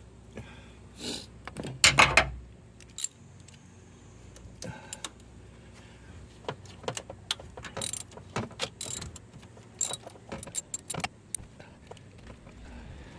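Metal tools and parts clinking and jangling, a loud rattling cluster about two seconds in, then a run of scattered sharp clicks.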